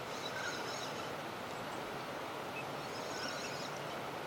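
A small bird twittering in short high runs of notes, twice, over the steady rush of flowing creek water.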